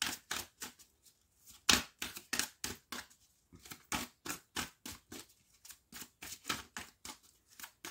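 A deck of oracle cards being shuffled by hand: a quick run of card clicks, about four a second, the loudest a little under two seconds in.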